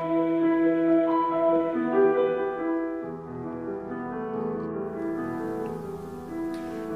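Church music: held chords on a keyboard instrument, softer from about three seconds in.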